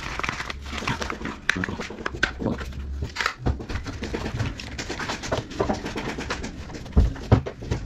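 Irregular clicks, knocks and scrapes of a Hilti TE 7-C rotary hammer's plastic housing and side handle being handled and fitted together, with two heavier knocks near the end.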